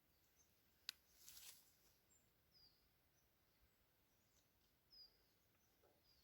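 Faint outdoor ambience with small birds giving short, high, falling chirps every second or two, a sharp click about a second in, and a brief hiss just after it.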